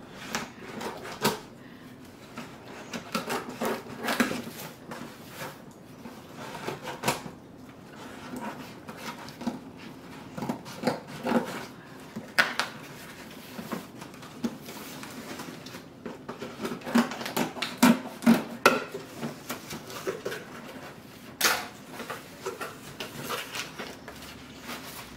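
Scissors cutting the packing tape on a cardboard shipping box, then the cardboard flaps being pulled open: irregular scrapes, rustles and knocks.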